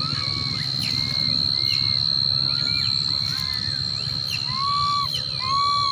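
Young macaques crying: a string of short, arched, pitched calls, several overlapping, with two longer, louder calls near the end. A steady high-pitched tone runs underneath.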